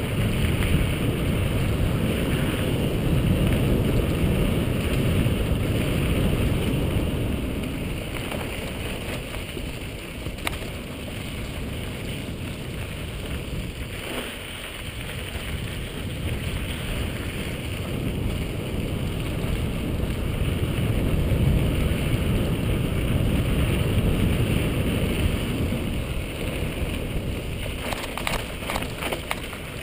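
Wind buffeting the microphone and the rumble and rattle of a mountain bike rolling fast down a dirt singletrack, louder near the start and again past the middle as speed picks up. A short run of light clicks comes near the end.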